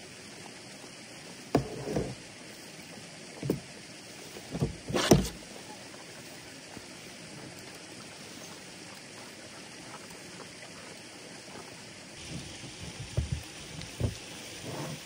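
Soft knocks and clatter of camp dishes and a fork being handled, over a steady outdoor hiss; the loudest, sharpest knock comes about five seconds in, and after about twelve seconds the background hiss changes and a run of softer knocks follows.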